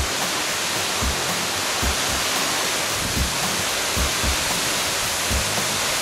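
Waterfall: a steady, even rush of water falling down a rock face.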